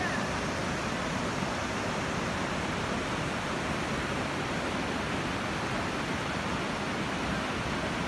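Fast-flowing river rushing through white-water rapids: a steady, even rush of water with no breaks.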